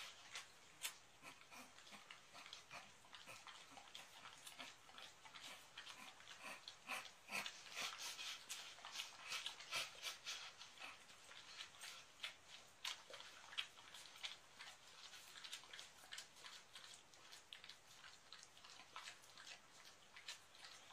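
A dog sniffing and snuffling at close range as it noses at a person lying down: a run of quiet, quick, clicky snuffles, busiest in the middle. The dog is trying to alert its owner to an oncoming epileptic seizure.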